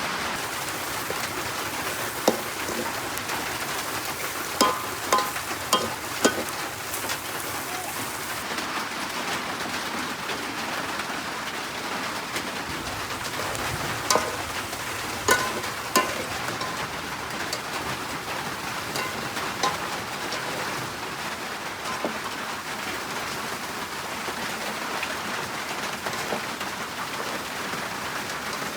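Rain falling steadily, with scattered sharp taps or knocks: a few about five seconds in and another few around fifteen seconds.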